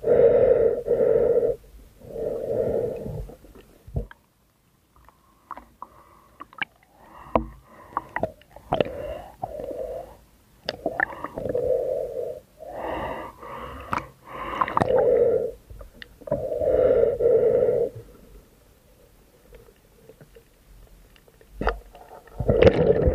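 A diver breathing through a snorkel while spearfishing: a series of wheezy breaths about a second long, in uneven runs, with longer pauses where the breath is held.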